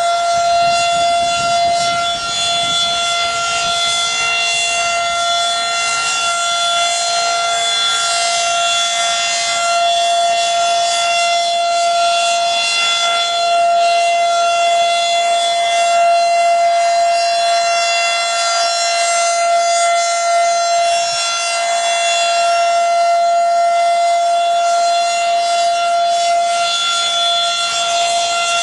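Federal Signal 2001-SRN/DC outdoor warning siren sounding a steady tone at one unchanging pitch during a siren test, swelling slightly in loudness.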